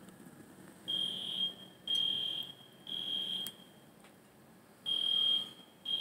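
Electronic alarm beeping a single high tone: three beeps about a second apart, a pause, then another group of beeps. This is the three-beep pattern used by smoke and fire alarms.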